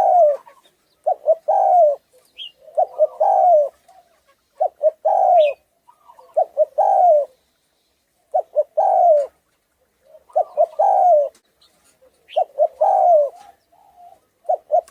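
Spotted dove (Thai-strain 'cu gáy thái') cooing in a hoarse, deep voice. It repeats a phrase about every two seconds: a few short stuttering notes, then a longer falling coo. A faint high chirp comes in now and then.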